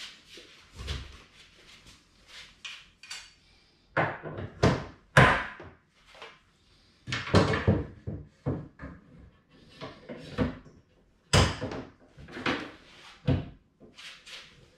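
An IKEA HJÄLPA clothes rail and its bracket knocked and clicked against a wardrobe frame while being fitted: an irregular run of short knocks, clicks and rattles, loudest about four to five seconds in and again about eleven seconds in.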